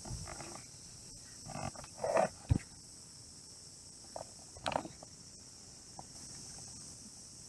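Insects chirring steadily in the evening, with a few short knocks and rustles over them; the loudest comes about two and a half seconds in.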